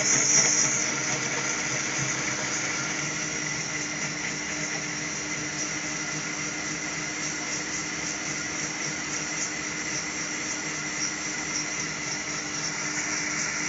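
Countertop blender running steadily on manual speed 4, puréeing peeled purple sweet potato with coconut milk: a steady motor hum with a few even tones over the churning of the thick mix, easing slightly in the first second or two.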